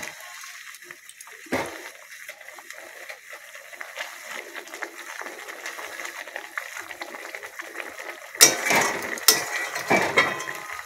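Spicy gravy simmering in a metal kadai with papad pieces in it, while a metal spatula stirs and scrapes against the pan. There is a single sharp knock about a second and a half in, and louder clattering and scraping from the spatula near the end.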